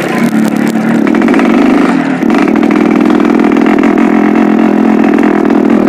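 Yamaha RX-King's two-stroke single-cylinder engine running loud, its carburettor set for a deep growling 'ngorok' note. The revs step up about a second in and again a little after two seconds, then hold steady.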